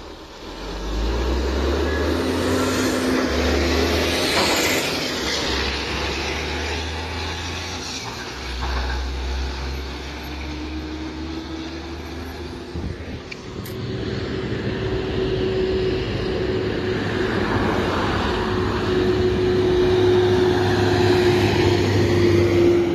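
Heavy diesel trucks running and pulling away along a road, a deep engine drone that changes abruptly a few times. In the second half a steady humming note rises slightly and then holds.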